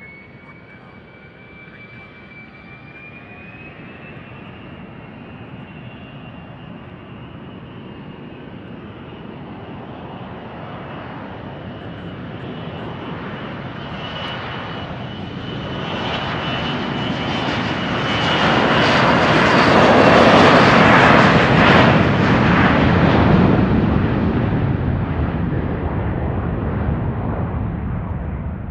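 Gulfstream business jet's two rear-mounted turbofan engines spooling up for takeoff, with a whine that rises in pitch and then holds. The jet accelerates down the runway and lifts off. The engine noise builds steadily, is loudest about two-thirds of the way through as the jet passes, then eases slightly as it climbs away.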